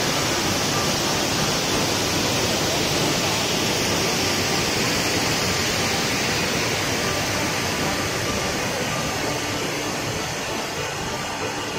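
Waterfall: a steady rush of falling water, easing slightly toward the end.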